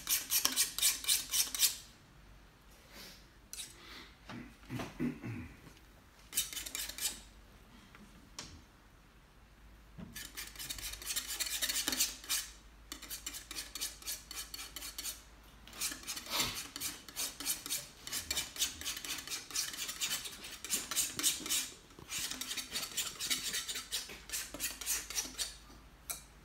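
Paintbrush scrubbing oil paint onto a panel: quick, scratchy back-and-forth strokes in several bursts, with quieter pauses between.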